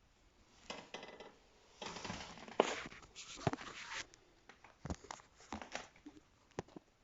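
Bricks from a fireplace arch scraping, grating and clinking as they are handled and worked loose, in irregular bursts with a few sharp knocks; the arch was laid with almost no mortar.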